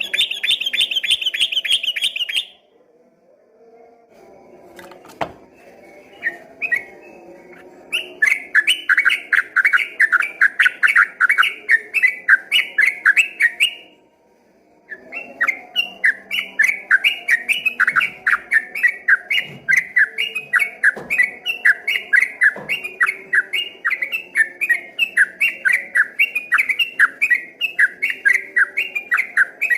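Yellow-vented bulbul (trucukan) singing its long, fast 'ropel' song: rapid runs of repeated notes that break off for about a second midway and then resume. A brief higher-pitched trill is heard right at the start.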